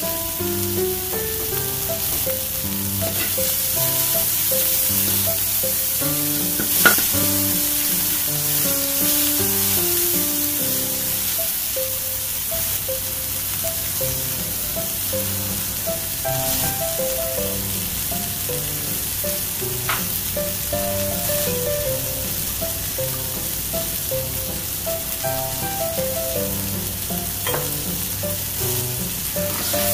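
Sliced onion, chilies and garlic sizzling in hot oil in a wok with a steady frying hiss as they are stir-fried, over light background music. A sharp knock about seven seconds in and a fainter one around twenty seconds.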